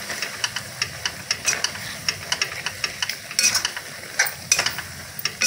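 A steel spoon stirring and scraping watermelon-rind mixture around a kadhai in an irregular run of scrapes and clicks, a few of them louder, over the sizzle of the mixture cooking in dissolving sugar.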